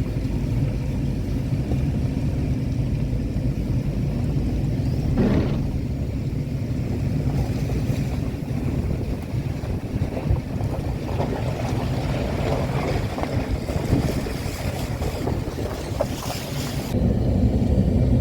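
Steady low rumble of a motor vehicle on the move, with an engine hum underneath and rougher noise in the middle stretch.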